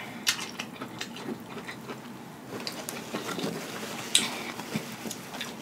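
Chewing a mouthful of sweet corn kernels bitten off the cob: soft, wet mouth clicks and crunches, about one clearer click a second.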